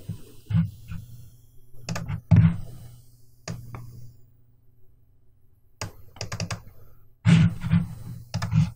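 Computer keyboard and mouse clicking in short irregular clusters, with a quiet gap about halfway through.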